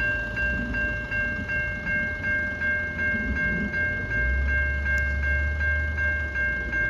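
Railway level crossing bell ringing steadily at about three strokes a second, over a low rumble that swells from a little past halfway.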